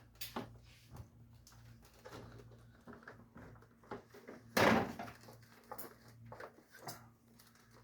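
Scattered clicks and light knocks from the split AC indoor unit's blower wheel being turned by hand and handled, with one louder knock about four and a half seconds in. A faint low hum runs underneath.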